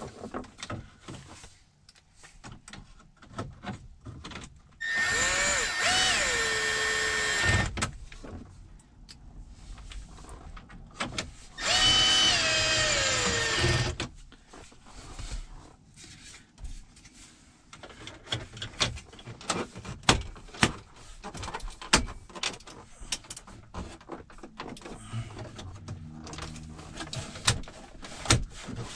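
A power drill-driver runs twice for two to three seconds each, slowing and dropping in pitch at the end of each run, as it drives screws back in. Between the runs come light clicks and knocks of plastic dash trim being handled.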